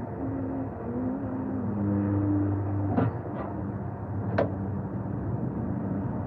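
A vehicle engine running steadily with a low hum, and sharp clicks of a hand tool on metal in a car's engine bay about three seconds in and again, louder, about four and a half seconds in.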